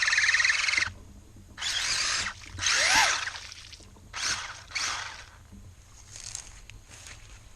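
RC mud truck's electric motor and geartrain whining under throttle, held for about a second and then cut off, followed by several short throttle bursts that grow fainter, one rising in pitch. The truck is being tried in two-wheel drive after part of the drivetrain seemed to seize.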